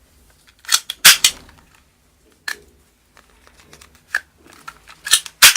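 Plastic toy guns being handled: a series of sharp clicks and knocks at irregular intervals, the loudest two near the end.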